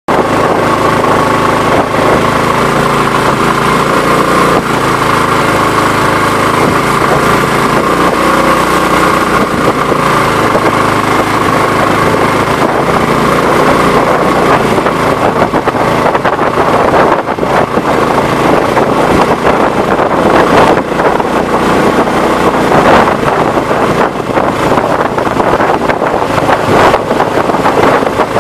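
Swamp Runner longtail mud motor, a Predator 212 single-cylinder engine, running steadily at speed and pushing a loaded freighter canoe, close to the microphone. Water rushes off the hull, and the noise gets rougher and gustier in the second half.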